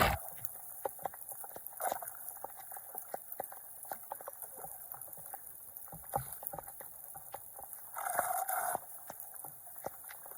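Floodwater splashing and gurgling with irregular small clicks and knocks, and a brief louder noisy patch about eight seconds in.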